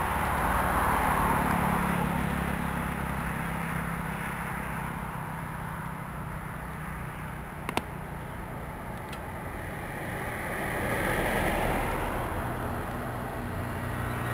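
Road traffic passing close by: two swells of car noise, one near the start and one about ten seconds in, over a steady low rumble. A single sharp click comes about eight seconds in.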